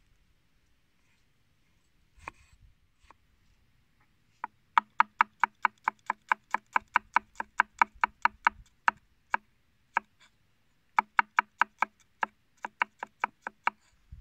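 Kitchen knife chopping garlic on a wooden cutting board: quick, even strikes about six a second, in one long run starting about four seconds in and a shorter run near the end.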